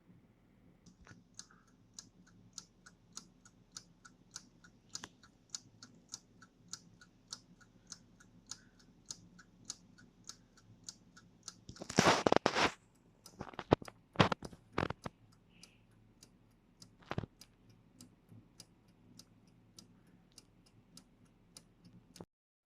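Polaris mechanical alarm clock movement ticking with a quick, even beat. About halfway through there is a short loud clatter, then a few sharp knocks, which are tools or parts being handled.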